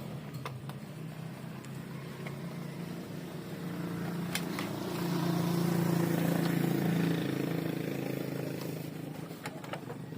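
A motor vehicle's engine hum that grows louder to a peak midway and then fades away, as when a vehicle passes by. A few sharp clicks are heard over it.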